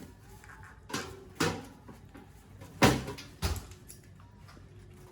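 Four sharp knocks of hard objects being set down or handled, the loudest about three seconds in.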